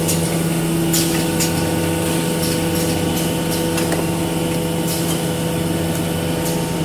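Automatic facial tissue box packing line running: a steady machine hum, with a short high hiss roughly once a second as the pneumatic cylinders vent air.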